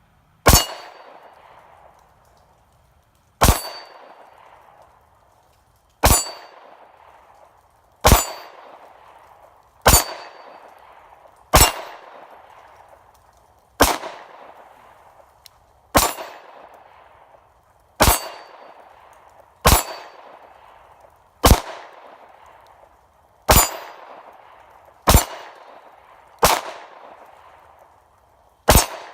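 A Glock 17 Gen 4 9mm pistol fires about fifteen single shots, roughly one every two seconds. Each shot is followed by the ringing clang of the steel target being hit at 10 yards.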